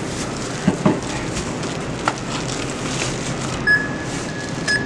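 Supermarket checkout ambience: a steady background hum of the store, a few light knocks of groceries being set down, and a checkout scanner beeping twice near the end.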